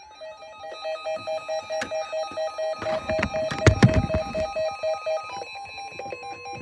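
Weather alert radio sounding its electronic alarm: a rapid beeping tone, about four beeps a second, over steady tones, with a loud knock about four seconds in. Near the end the beeping stops and a steady tone takes over as the next alert begins.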